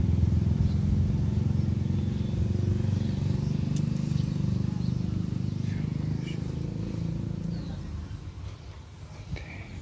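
A motor vehicle's engine running steadily nearby, then fading away over the last couple of seconds.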